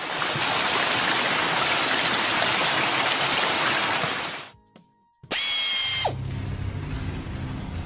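Cartoon water-jet spray sound effect: a loud, steady hiss that cuts off after about four and a half seconds. After a brief silence comes a short effect of high ringing tones that slide down in pitch together.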